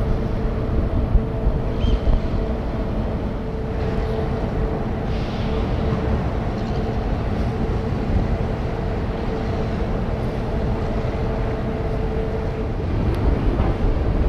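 Large passenger ro-ro ferry's engines and machinery running steadily as it comes in to berth: a low rumble with a steady hum, with wind on the microphone.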